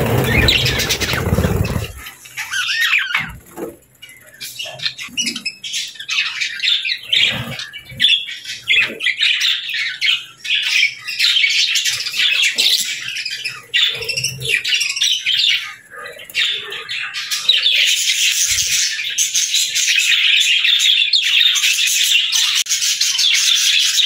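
A flock of budgerigars chattering and chirping, many birds at once in a dense, busy warble that grows thicker and more continuous over the last several seconds. For the first couple of seconds a low rushing noise sounds along with the chirping.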